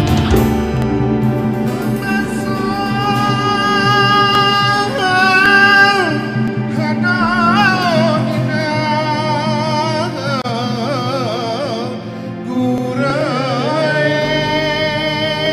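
Music with a singing voice: long held notes, some sung with a wavering, trilled ornament, over steady sustained instrumental tones.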